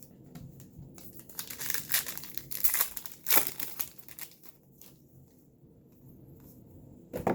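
Trading-card pack wrapper crinkling and crackling as it is handled or torn open, loudest for a couple of seconds about a second in, then faint clicks of cards being handled.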